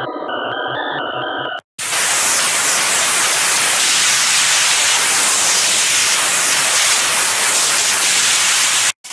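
Xfer Serum FX presets played in turn: a short run of stepping synth notes, then after a brief break a loud, steady wash of white-noise hiss for about seven seconds, which cuts off suddenly near the end.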